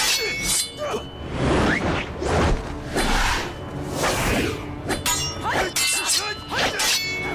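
Fight sound effects from a martial-arts scene: repeated whooshes and hard strikes, some with a short metallic ring, over dramatic background music.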